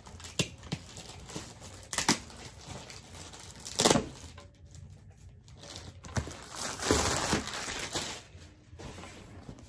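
Clear plastic wrapping being torn and pulled off a cardboard collectible box, crinkling. A few sharp crackles, the loudest about four seconds in, then a longer stretch of crinkling as the plastic comes away.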